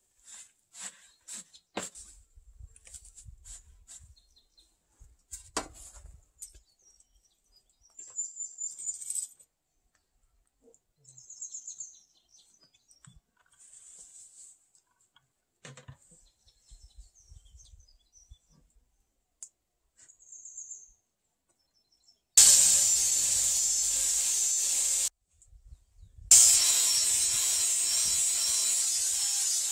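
Scattered scraping and rustling as wood shavings are shovelled into a plastic bucket and tipped out, with a few high chirps. Near the end, an electric angle grinder runs against a peeled log post in two steady high-pitched runs, the first about three seconds long, the second starting a second later.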